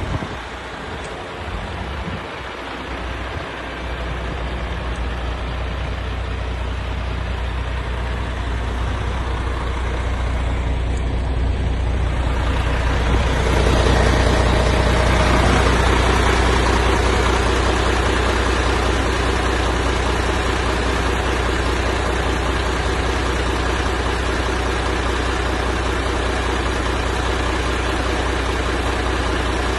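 MAN TGX 18.500 truck's diesel engine idling steadily. It grows louder about a third of the way in, then holds steady.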